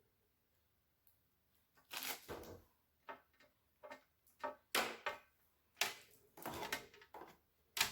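Scattered short clicks and rustles of ring light parts and packaging being handled, starting about two seconds in and coming irregularly.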